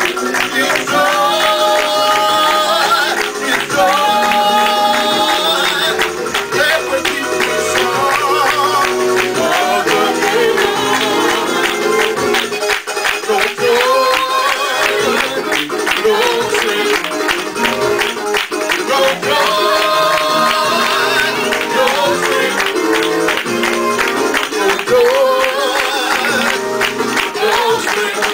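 Music with a steady, quick beat and long held melody notes over it.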